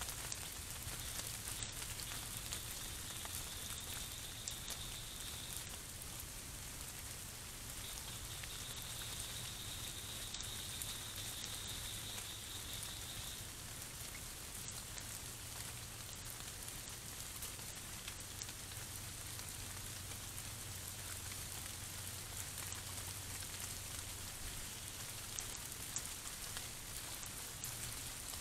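Steady hiss from a Campark T80A trail camera's microphone and recording circuit, with a low hum underneath and a faint high-pitched trill twice in the first half.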